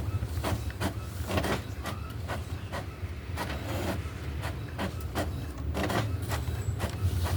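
Epson WorkForce Pro WF-C5890 inkjet printer running a colour print job: a steady hum with a rapid, uneven run of clicks and swishes.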